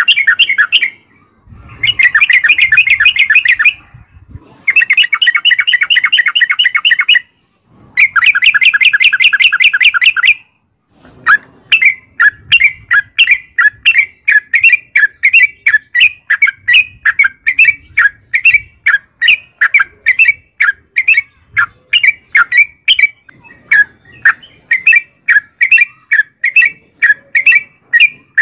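Yellow-vented bulbul (trucukan) singing: long rapid rolling trills in runs of two to three seconds with short breaks. About a third of the way in, these give way to a steady series of separate sharp chirps, about two or three a second.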